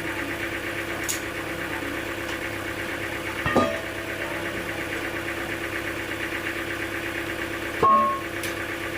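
An engine running steadily with an even, fast beat, broken twice by a sharp metallic clank that rings briefly: once a little past a third of the way through and once, louder, near the end.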